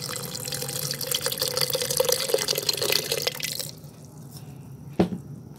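Water poured into a glass blender jar over cucumber pieces, splashing and filling, until it stops about two-thirds of the way through. Near the end comes a single sharp knock.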